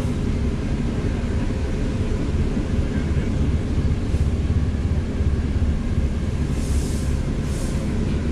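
Heritage railway carriage running along the track, heard from on board: a steady low rumble. Three short hissing bursts come near the end.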